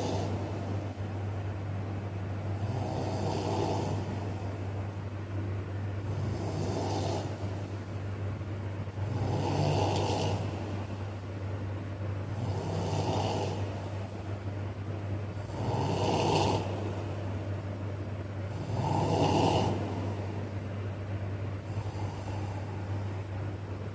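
A man snoring: a drawn-out snore about every three seconds, each lasting about a second, over a steady low hum.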